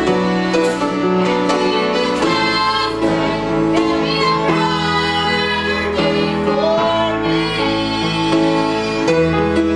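Southern gospel song performed live: a woman sings into a microphone with a grand piano and band accompanying her.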